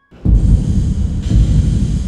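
Horror sound effect: a sudden deep rumbling boom that starts a moment in and swells again about a second later, with a hiss above it.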